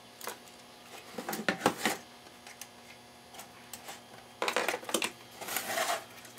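Handling of a CB radio's metal chassis on a wooden workbench: a few small clicks and knocks, then two short scraping rushes about four and a half and five and a half seconds in as the radio is turned around.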